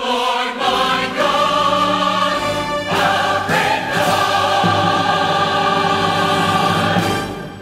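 Large choir and orchestra singing the closing chords of an Easter cantata number, a few sustained chords ending in a long held one that fades out near the end.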